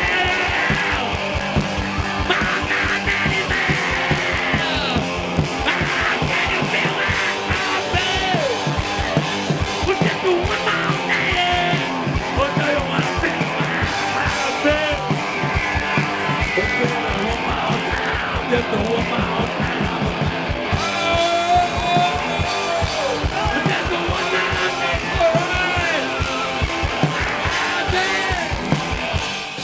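Rock band playing live: electric guitars over a steady drum beat, getting quieter right at the end.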